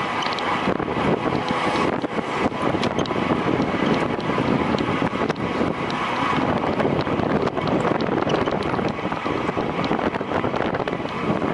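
Steady rush of wind over the microphone at racing speed, mixed with the running noise of the moving vehicle.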